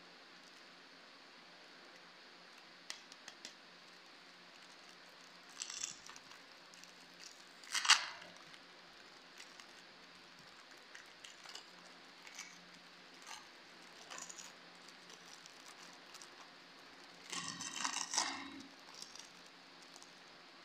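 Plastic biscuit-pack wrapper crinkling and rustling as it is pulled open by hand, in scattered short bursts. The loudest is a sharp crackle just under eight seconds in, and a longer run of crinkling comes near the end.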